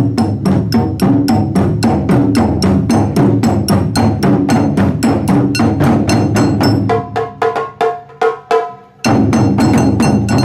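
Taiko drum ensemble playing a fast, steady run of heavy strikes with sharp clicking accents. About seven seconds in it drops to lighter strikes with a ringing pitched part, then the full drums come back in just before the end.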